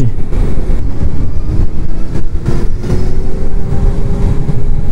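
Wind buffeting the microphone with road noise while riding an electric motorcycle at speed, with no engine sound. A faint whine slowly rises in pitch from about a second and a half in.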